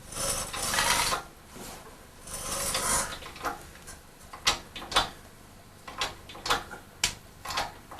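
Workshop handling noise as a car body is moved over its engine on jacks. There are two short scraping rushes in the first three seconds, then a run of sharp metallic clicks and knocks.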